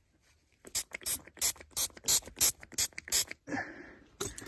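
Hand trigger spray bottle squirting soapy water in a rapid run of about ten short hissing pumps, about four a second, with a couple more near the end. The soapy water goes onto a threaded PVC cleanout plug under an air pressure test to check the joint for leaks.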